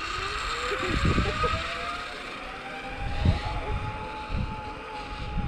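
Zipline trolley pulley running down a steel cable, a whine that rises in pitch over the first few seconds as it picks up speed and then holds steady, with wind buffeting the microphone.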